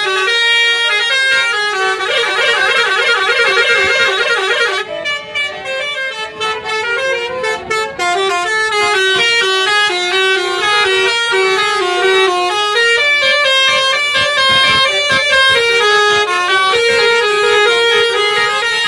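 Bus 'telolet' Basuri multi-tone horn playing a tune of stepped notes, with a fast warbling trill from about two to five seconds in.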